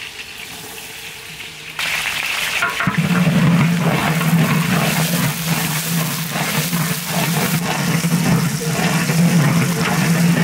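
A ladle stirring green chilies and sliced onions through hot, bubbling liquid in a large cooking pot, sloshing and sizzling with many small scraping strokes. It starts suddenly about two seconds in, and a steady low hum joins it soon after.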